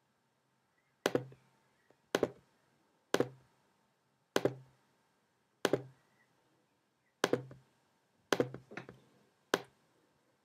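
About nine single clicks of a computer pointing device's button, roughly a second apart and unevenly spaced, each click setting a new point on a spline being drawn.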